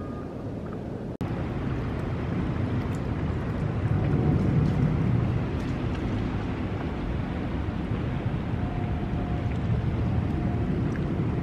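Wind rumbling on the microphone over water lapping close by, heard from a paddleboard gliding on calm sea. It breaks off for an instant about a second in.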